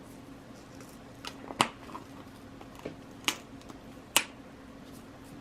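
A handful of sharp clicks and taps, about six spread over a few seconds, the loudest three about a second apart, from small packaged items being handled and set down, over a faint steady hum.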